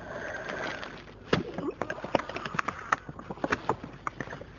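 Handling noise close to a clip-on lapel microphone: a faint rustle, then from about a second in a run of irregular sharp clicks and crackles.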